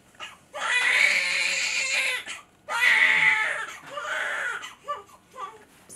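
Newborn baby crying: two long wails starting about half a second in, then a shorter, weaker cry and a few brief whimpers near the end.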